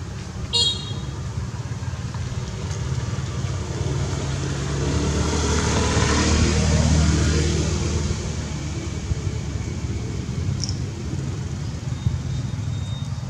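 A motor vehicle passing by: a low engine rumble that swells to its loudest about six to seven seconds in, then fades. A brief high-pitched squeak sounds about half a second in.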